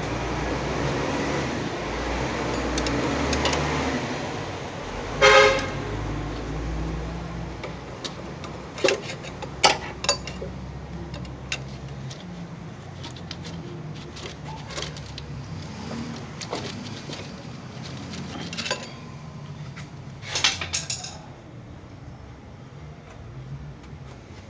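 Several sharp metal clicks and knocks from hand tools working loose the accessory-belt tensioner pulley, over a steady background of traffic and workshop noise. A short car-horn toot sounds about five seconds in.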